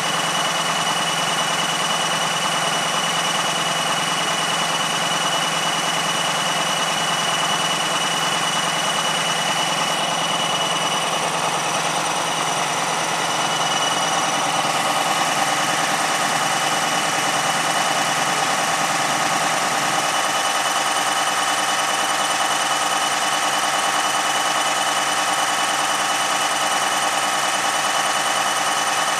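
Diesel engine of a passenger train idling steadily, a low hum with a steady high whine over it. The hum shifts a little about fifteen and again about twenty seconds in.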